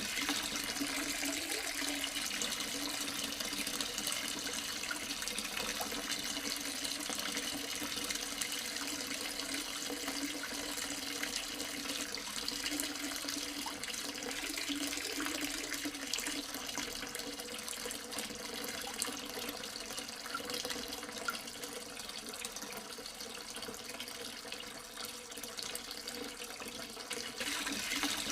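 Water running steadily from a tabletop waterfall fountain, an even splashing trickle.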